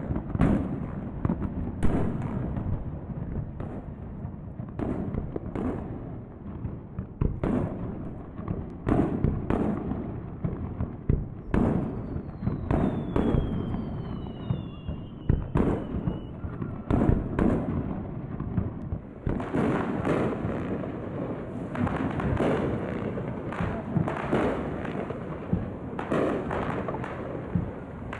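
Fireworks display: aerial shells bursting with deep booms roughly once a second. Two falling whistles come near the middle, and the bursts grow denser and more crackling in the last third.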